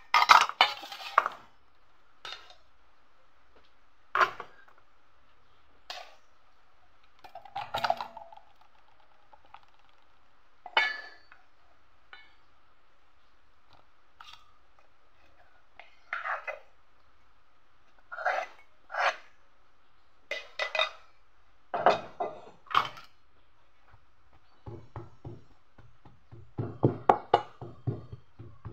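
Aluminium pot and stainless-steel bowl clinking and clanking in scattered single knocks as they are handled. Near the end comes a quick run of duller knocks: a pestle mashing boiled jackfruit seeds in the steel bowl for chutney.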